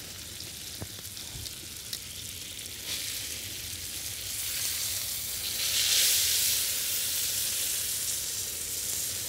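Bacon-wrapped meatloaf sizzling in hot grease on a Blackstone flat-top griddle, with a few light clicks of a metal spatula and tongs. The sizzle grows louder about six seconds in as the loaf is turned onto a fresh side.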